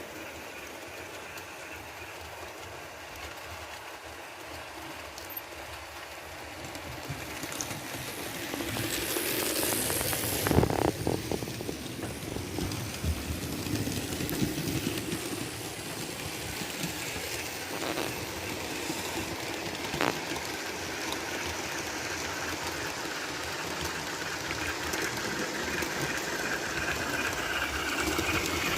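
Model steam locomotive running with a DCC sound decoder: chuffing and steam hiss from the decoder's speaker, with the wheels clicking on the track. It grows louder about a third of the way in, with a sharp click near the middle.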